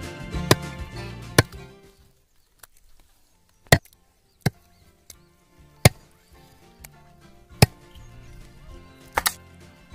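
A cleaver chopping raw duck into pieces on a wooden block: about eight sharp, separate chops, spaced irregularly a second or so apart. Soft background music runs under it and drops away about two seconds in.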